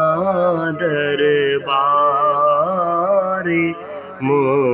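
Male voice singing a Sindhi naat, drawing out long, wavering held notes at the end of one line of the refrain, then starting the next line near the end.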